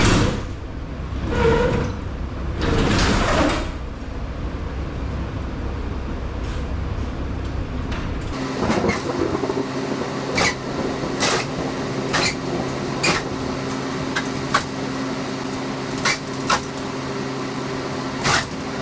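Sectional overhead garage door being worked down while it binds, running crooked from an unspooled lift cable: heavy rumbling surges at first, then a string of sharp metallic clanks and knocks over a steady low hum.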